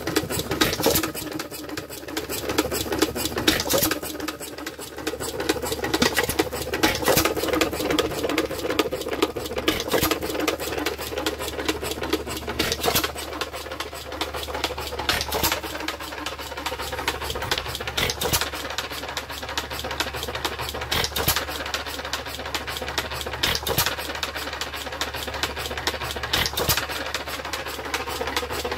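International Harvester Famous 1 hp hit-and-miss engine running with a butter churn reduction gear turning: a fast, steady clatter of gear and valve train, with a louder knock every two to three seconds. A hum sounds under it through the first half.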